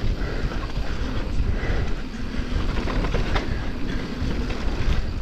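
Mountain bike rolling fast down a dirt forest trail: a steady rumble of tyres over dirt and loose pine needles, with the bike rattling and a few sharper clacks.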